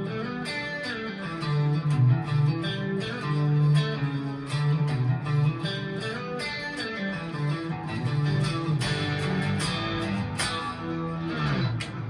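Electric guitar through a 1987 Marshall JCM800 2203 amplifier, playing a rock riff of rapid picked notes and chords. Near the end the pitch slides downward.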